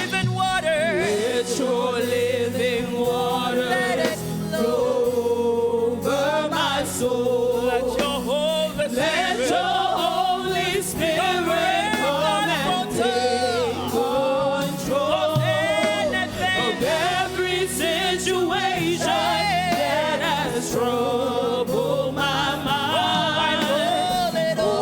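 Gospel praise-and-worship singing: voices carrying a slow worship melody over live band accompaniment with steady low notes and a regular beat.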